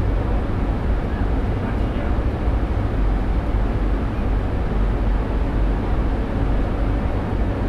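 Steady low rumble and running noise of the Penang Hill funicular railway car, heard from the driver's cab.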